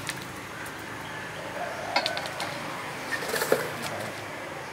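A few light knocks and clicks of thin bamboo rod sections being handled and moved on the ground, one about two seconds in and a short cluster about a second and a half later.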